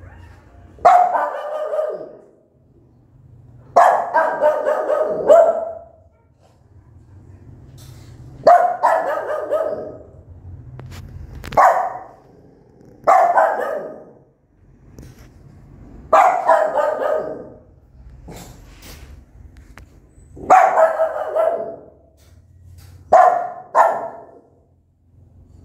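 Small white mother dog barking loudly and repeatedly, about nine long, drawn-out barks a few seconds apart.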